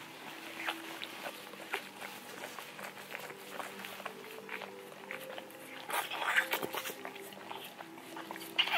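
Towel rubbing and rustling against a newborn puppy as it is dried and stimulated, with small handling clicks, louder for about a second around six seconds in. Faint held notes of soft background music sit underneath.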